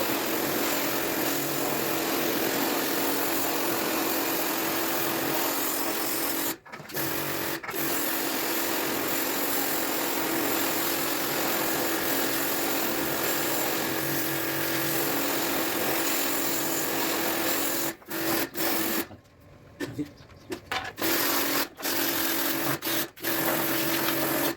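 A small electric motor running steadily with a hum, cutting out briefly twice and then being stopped and restarted in short bursts near the end.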